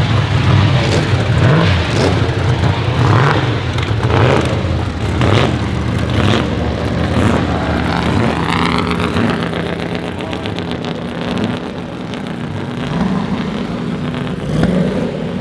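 Several Mercedes racing car engines, pre-war Silver Arrows and a Sauber Mercedes C9 among them, running steadily at low revs as the cars roll slowly past in a line. A few short, sharp pops come in the first half.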